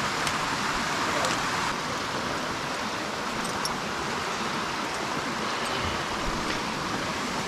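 Steady rush of a river's flowing water and small cascades, an even hiss without a beat.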